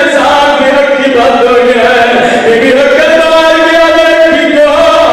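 A man's voice chanting a Shia majlis recitation into a microphone in long, held notes that slide up and down, stepping up in pitch about three seconds in.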